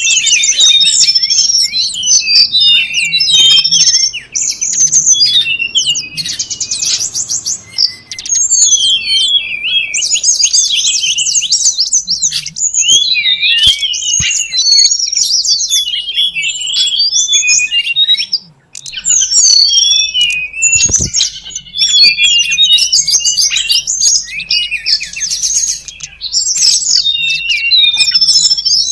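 Recorded song of the tledekan gunung, a small Indonesian songbird, played loud as a bird-trapping lure: a dense, unbroken run of high, fast chirps and trills, with a few brief pauses.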